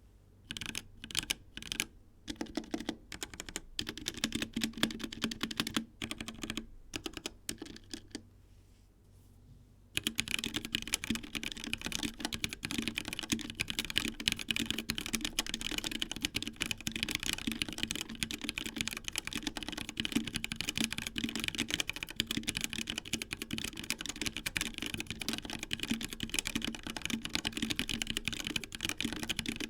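Typing on a HyperX Alloy Origins 65 mechanical keyboard with linear HyperX Red switches. For about the first ten seconds the keystrokes come singly with pauses between them, then they run on as fast, continuous typing.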